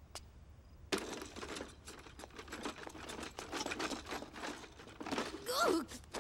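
Cartoon sound effects of junk clattering and rattling in a cardboard box: a fast jumble of small knocks and rustles, as toys and odds and ends are rummaged and piled in. Near the end comes a brief gliding, voice-like strained sound as the heavy box is taken up.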